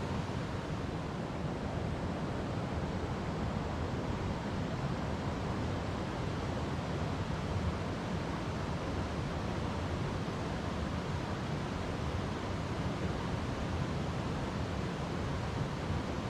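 River water flowing over rocks in a steady, unbroken rush.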